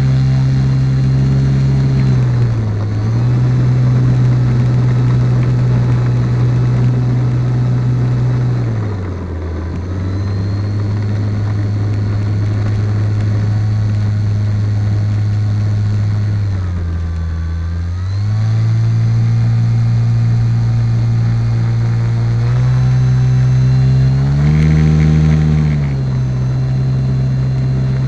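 A 1020 kV brushless outrunner motor spinning the propeller of a homemade RC plane as it taxis, heard from on board: a steady motor whine whose pitch drops and rises several times as the throttle changes.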